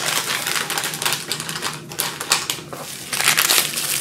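Thin clear plastic bag crinkling and rustling as it is handled, a dense run of small crackles with a few louder patches.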